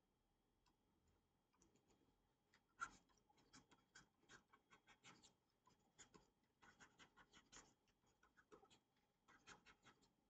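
Faint scratching and tapping of a stylus writing on a pen tablet, in quick clusters of short strokes that start about a second and a half in.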